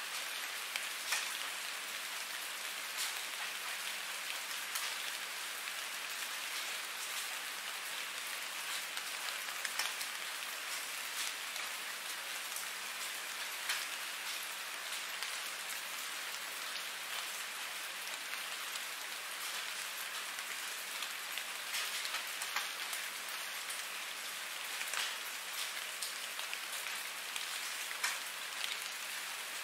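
Steady rain: an even hiss with many small, scattered louder drop ticks throughout.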